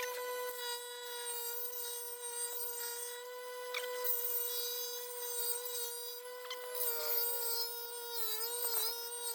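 Grinding wheel running with a steady whine while a steel lawnmower blade is ground against it, a rough scraping hiss over the tone. Near the end the pitch wavers and dips several times as the blade bears on the wheel.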